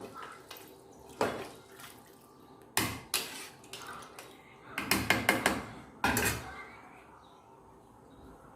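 Kitchen work: water splashing and pots and dishes knocking, in several short bursts with a quick run of clatters about five seconds in.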